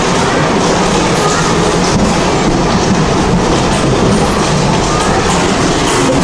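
Steady, loud din of a kiddie bumper car ride running, with a low hum throughout and no distinct impacts.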